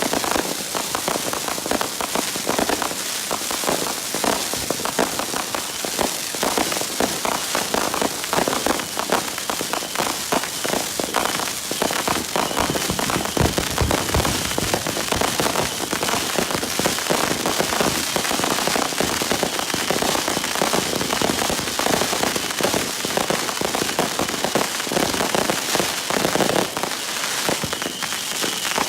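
Consumer fireworks crackling: a dense, unbroken mass of small overlapping pops, much like heavy rain, with one heavier thump about halfway through.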